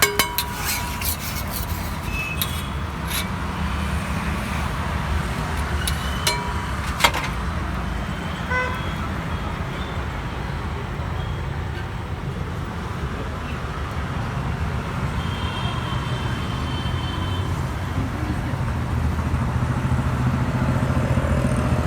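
Street traffic running steadily, with a short run of horn toots about eight seconds in and a few sharp metallic clinks near the start and again around seven seconds in.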